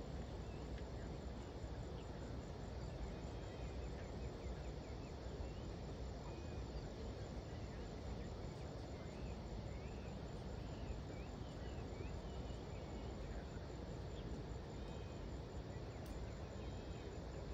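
Outdoor ambience: a steady low background rumble with faint, scattered bird chirps throughout.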